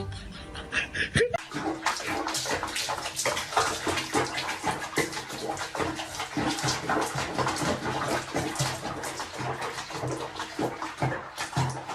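Water splashing and sloshing: dense irregular splashes start about a second in and carry on without a break.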